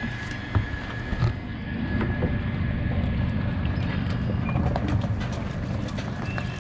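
Tow vehicle and boat trailer rolling slowly over a wet gravel launch ramp: a steady low rumble of engine and tyres with scattered small knocks and crunches.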